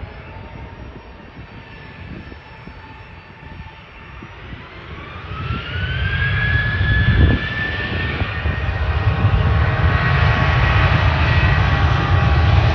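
Boeing 737-700's twin CFM56-7B turbofan engines spooling up for takeoff. About four and a half seconds in, a whine rises in pitch and then levels off, and the engines settle into a loud, steady low rumble at takeoff thrust.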